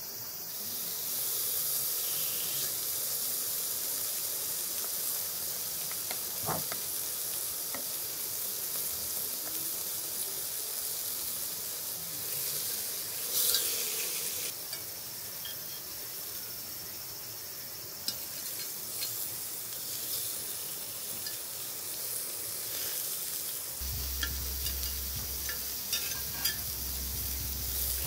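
Pork galbi sizzling on a hot cast-iron grill plate over charcoal: a steady hiss that starts about half a second in as the meat goes down. A few clicks of metal tongs on the meat and plate.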